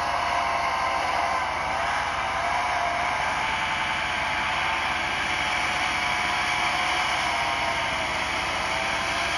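Classic Range Rover's V8 engine running steadily under load as the 4x4 climbs through snow and mud, its note wavering slightly in pitch.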